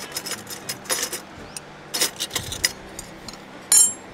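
Cutlery clinking and tapping against a dish while eating: a run of light clicks over the first few seconds, then one bright ringing clink near the end.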